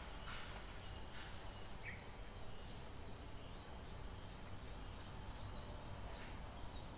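Faint outdoor ambience: a steady high-pitched insect drone, with a brief chirp about two seconds in.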